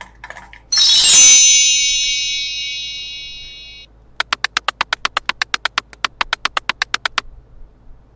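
A bright, shimmering magic chime sound effect starts suddenly about a second in and fades away over about three seconds. It is followed by a rapid, even run of sharp clicks, about nine a second, lasting about three seconds.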